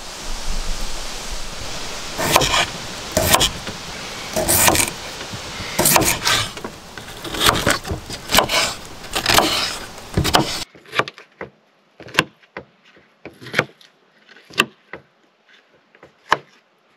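Knife cutting red potatoes on a wooden cutting board, a sharp tap against the board with each cut, coming irregularly. For roughly the first ten seconds a steady hiss of rain runs underneath, then cuts off suddenly, leaving only the knife taps.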